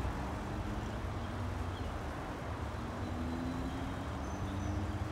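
Cars and a pickup truck driving across a railroad grade crossing. Their engines run over a steady low rumble, with the pitch rising slightly as they go.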